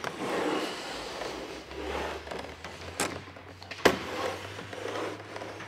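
Absorber pipe being worked round an aluminium frame and clipped into it: uneven rubbing and scraping with two sharp clicks, about three and four seconds in.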